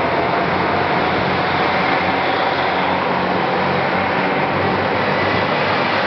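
Super Soya limited express, a KiHa 261 series diesel train, pulling out of the station: its diesel engines run under load with steady, loud engine and wheel noise.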